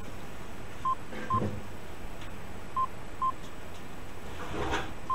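Electronic alert beeps: three pairs of short, high, steady beeps, the pairs about two seconds apart, over a low steady hum, with a brief soft noise just before the last pair.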